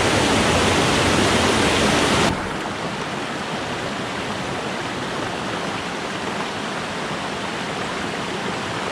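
Rushing water of a small cascading stream, a steady hiss. A little over two seconds in it suddenly drops quieter and stays even.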